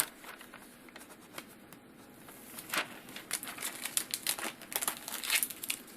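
Adhesive paper labels being peeled off their backing liner: soft paper crinkling with a run of small crackles, busier in the second half.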